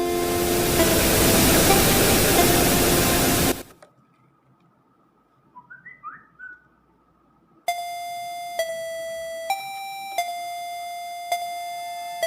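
Background music of slow, chime-like electronic notes. It opens under a loud hissing noise that cuts off suddenly a few seconds in, falls almost silent for about four seconds, and then the bell-like notes resume, changing about once a second.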